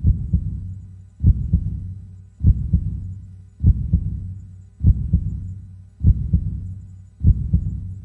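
Heartbeat: slow, steady lub-dub, a low double thump repeating about every 1.2 seconds (about fifty beats a minute), seven beats in all.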